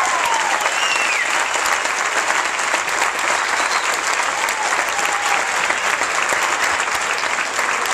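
Crowd of seated guests applauding steadily after a dance routine, with a few whoops and cheers in the first second or so.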